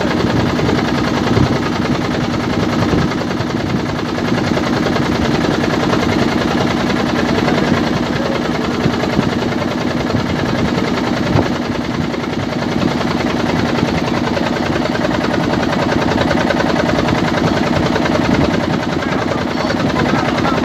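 Motorboat engine running steadily on board, a loud, rapid, even chugging with a steady hum.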